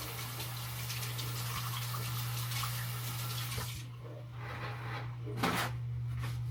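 Kitchen tap running as an espresso portafilter is rinsed under it; the water stops about four seconds in. A few short handling sounds follow, the sharpest about a second later, over a steady low hum.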